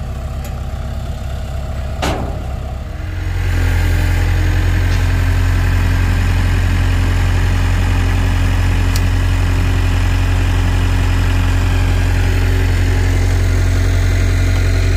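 Engine of a loader tractor with pallet forks running close by. It steps up to a louder, steady run about three seconds in as it handles an engine on a pallet. There is a single sharp click about two seconds in.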